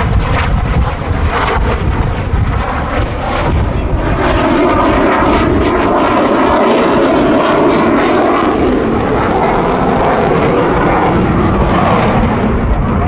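Loud jet noise from the Eurofighter Typhoon's twin EJ200 turbofans during an aerobatic display, crackling for the first four seconds or so, then a smoother, steadier sound.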